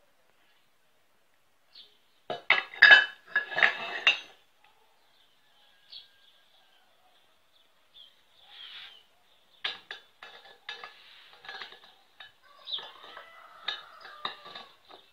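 Steel spur gears and steel bearing-housing plates being handled, clinking and knocking metal on metal. A loud cluster of clanks comes about two to four seconds in, then from about ten seconds on a run of lighter clicks and taps, some of them ringing briefly, as a gear is fitted onto its shaft in the housing.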